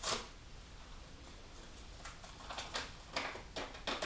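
Light handling noises of ingredient packaging over a Thermomix mixing bowl while sourdough extract is added: a short click at the start, then a few brief rustles and taps in the last second and a half.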